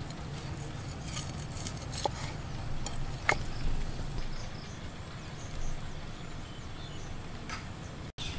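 A cleaver chopping cooked meat on a thick wooden chopping board: a few sharp knocks, a cluster about a second in and a louder one past three seconds, over a steady low rumble with faint high chirps.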